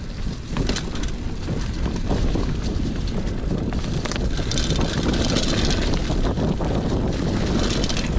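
Wind rumbling on the microphone while a Trek Marlin 7 mountain bike rolls along a dirt trail, with tyre noise and the bike's rattles.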